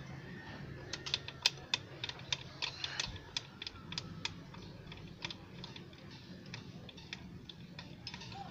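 Irregular sharp metallic clicks and clinks of a wrench and bolt as a motorcycle seat-mounting bolt is unscrewed. The clicks come thick and fast at first and thin out after about four seconds.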